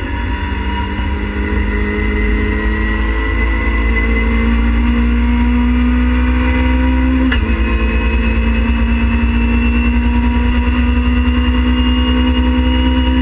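Race car engine at full throttle, heard from inside the cockpit, revving up through third gear to about 7,400 rpm. About seven seconds in there is a quick upshift to fourth with a sudden drop in pitch, and then the engine revs up again.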